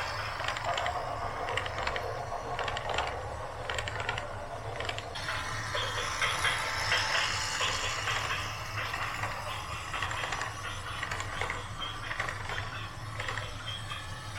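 Heavy machinery clattering with dense, irregular metallic clicks and rattles over a steady low engine drone.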